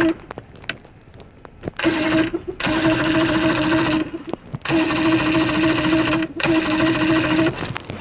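Outboard motor's electric starter cranking the engine in several bursts of one to two seconds, a steady whine each time; the engine turns over but does not fire.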